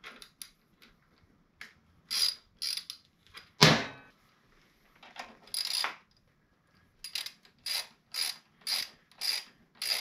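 Socket ratchet clicking in short bursts, stroke by stroke, as it cranks in a motorcycle's rear-axle chain adjuster screw to take up chain slack. The strokes are irregular at first, with one louder one a little before the middle, then settle into a steady rhythm of about two a second in the second half.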